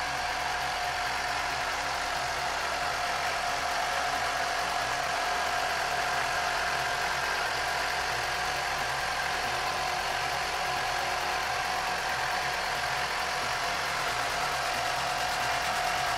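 Suzuki GSX-S750's inline-four engine idling steadily.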